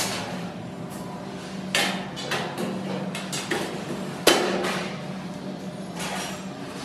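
Painted sheet-steel supermarket rack shelves being handled and fitted onto slotted uprights: a series of metallic clanks and knocks, the loudest a little past four seconds in.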